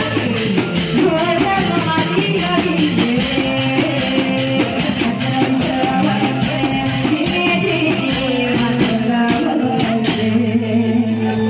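Music with a singing voice over a steady drum beat.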